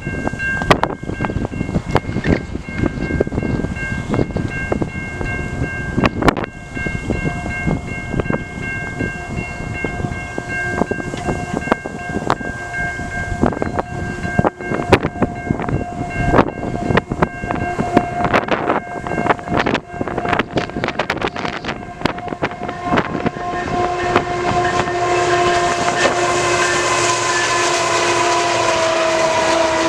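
Approaching CN diesel freight train sounding its air horn in steady tones, with wind gusting across the microphone. In the last third the train's rumble grows louder and a steady tone drops slightly in pitch as the lead locomotive comes by.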